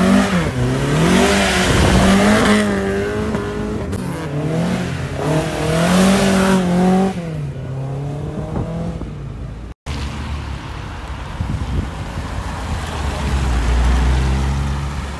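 Mk1 Ford Escort's engine revved hard several times as it pulls away, its pitch climbing and falling again and again over the first seven seconds. After a break, a steadier low engine sound, with a deep rumble near the end.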